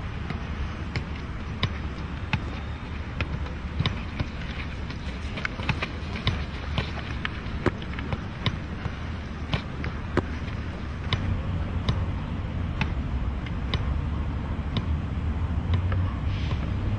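A football being struck over and over, as in juggling or kicking: sharp thuds at an uneven pace, roughly one a second, over a steady low background rumble.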